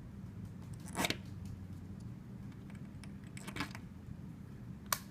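Small carburetor parts and screws being handled and fitted by hand: three light clicks and rattles, over a steady low hum.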